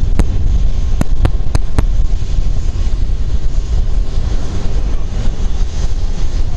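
Jet airliner engine noise, a loud, steady low rumble, from the Boeing 737-800's CFM56-7B turbofans. Five sharp clicks come in the first two seconds.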